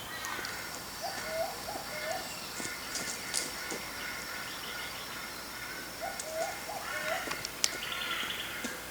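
Wild birds calling in bushland. One bird repeats a short phrase of three or four low rising notes twice, while others call higher, over a steady high-pitched tone.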